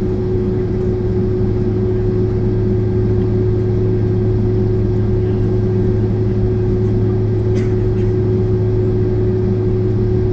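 Jet engine and airflow noise inside a Boeing 767-400ER's cabin, whose General Electric CF6 turbofans are running steadily. It is a loud, even rush over a low hum, with a constant steady tone through it.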